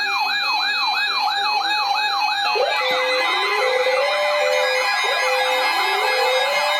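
Electronic siren alarm sounds layered over each other: a rising-and-dropping sweep repeats about twice a second and speeds up about two and a half seconds in. At that point a slower rising wail and a repeating on-off tone join it, over steady high tones.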